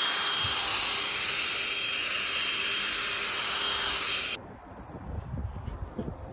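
A small power tool running with a steady high hiss and a thin whine, cutting off suddenly about four seconds in, followed by quieter irregular scraping.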